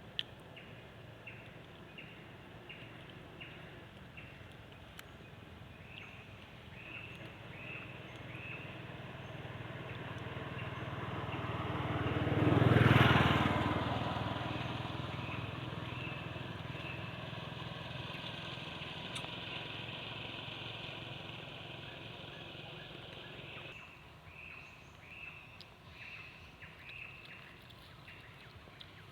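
A motor vehicle passes by, growing louder to a peak about halfway through and then fading away. Under it runs a steady series of short high chirps, about two a second.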